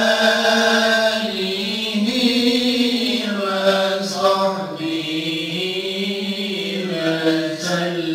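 A man's solo voice chanting a Turkish devotional hymn about the night of the Prophet Muhammad's birth, unaccompanied and sung into a microphone, in long held, ornamented notes with short breaks between phrases.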